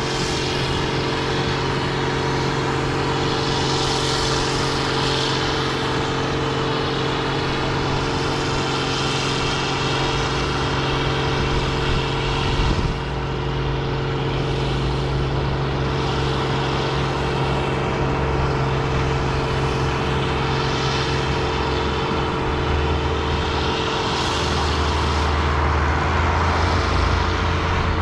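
Large farm machine's engine running at a steady speed, with a high rushing hiss that swells and fades every few seconds and a deeper rumble growing stronger near the end.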